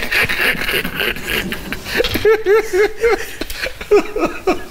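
Several people laughing hard, with a run of quick, evenly spaced 'ha-ha-ha' pulses about two seconds in.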